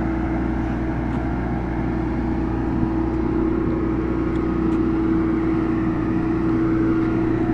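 Marine Travelift boat hoist running steadily as it drives slowly forward under load, its engine drone carrying a constant whine, growing slightly louder near the end.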